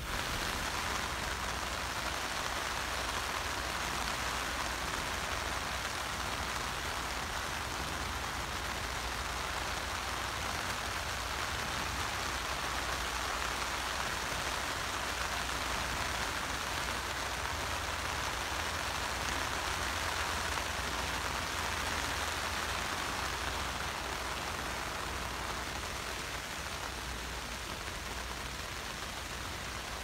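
Steady rain falling on a tent's fly, heard from inside the tent as an even hiss of drops, easing slightly near the end.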